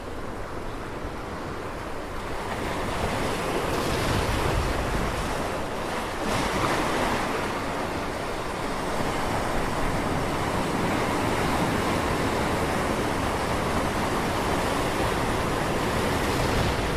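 Ocean surf: a steady rushing wash of waves that grows louder about two to three seconds in.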